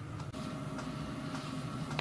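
Steady machine hum from a small motor, with a few light ticks.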